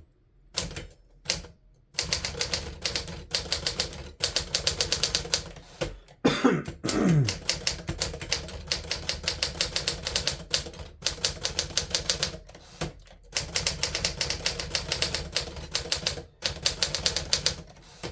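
1950s Smith Corona Silent Super manual typewriter being typed on: quick runs of keystrokes, several a second, broken by short pauses, with a short falling swish about six seconds in.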